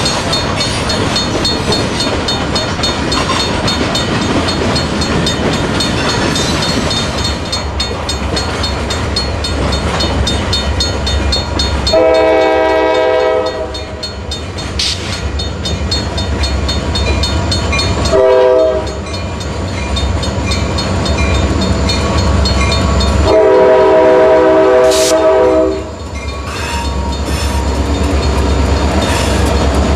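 Diesel freight locomotive's air horn sounding for a grade crossing: a long blast, a short one and a longer one, over the steady rumble and wheel clatter of freight trains passing. A crossing bell rings in the background.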